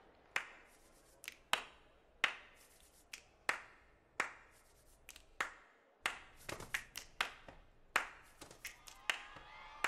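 Hand claps and finger snaps from a group of singers, each sharp and with a short echo. They start sparse and uneven, about one every second, and come faster and denser from about six seconds in.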